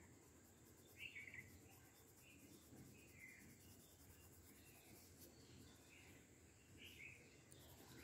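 Near silence: faint colored-pencil strokes on paper, with a few faint, short high chirps.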